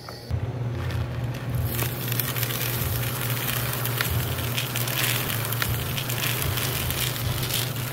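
Electric coffee grinder running: a steady motor hum under the dense crackle of beans being crushed. It starts about a third of a second in, and the grinding gets louder and brighter about two seconds in.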